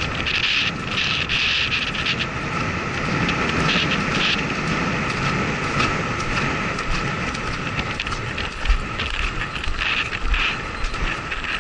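Wind rushing over a helmet camera's microphone as a horse gallops, with the thud of its hooves underneath.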